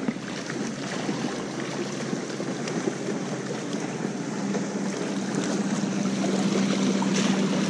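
Lake water lapping and splashing against a rocky shoreline, with a steady hum that comes in about halfway through.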